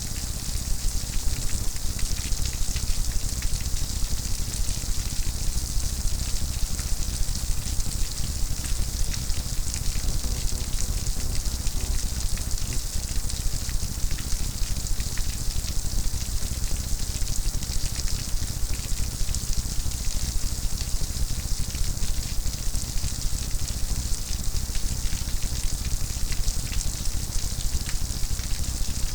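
Steady rain falling, a dense crackling patter of drops with a low steady rumble underneath.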